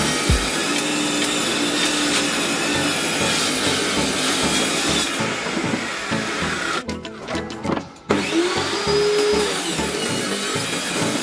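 A power tool working wood, running with a steady noise that cuts out for about a second some seven seconds in, over background music.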